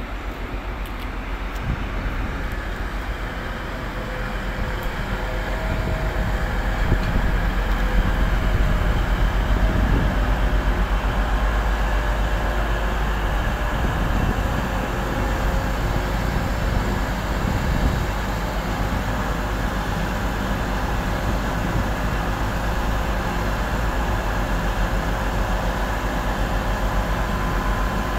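TransPennine Express Class 185 diesel multiple unit passing through on the far line, its diesel engines running under a low rumble of wheels on rail. It is loudest about eight to eleven seconds in as it goes by.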